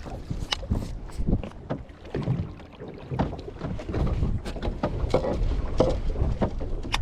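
Wind buffeting the microphone on a boat at sea, with scattered short knocks and splashes of water against the hull; it grows louder about halfway through.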